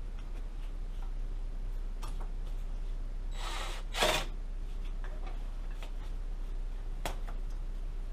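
Scattered light clicks and metal clinks of a socket tool being worked on a motorcycle exhaust bracket, with a short scraping rustle a little past three seconds and a sharper clank about four seconds in.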